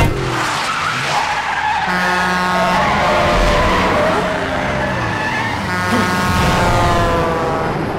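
Car engine revving hard in a high-speed chase, its pitch climbing and falling, with tyres skidding and squealing.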